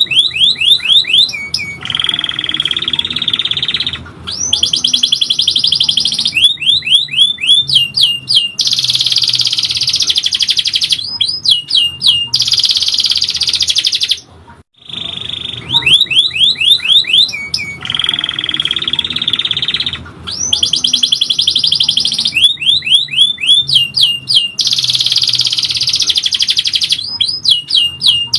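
Domestic canary singing a long, loud song of rapid trills and rolls broken by quick downward-sweeping notes. After a brief pause about halfway through, the same song sequence repeats exactly, as a looped tutor recording does.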